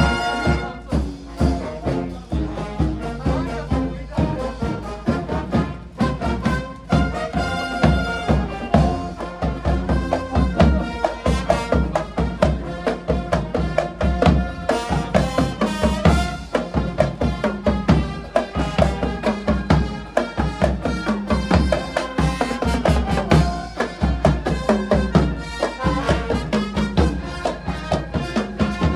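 Marching band playing: brass instruments carrying a melody over a steady drum beat.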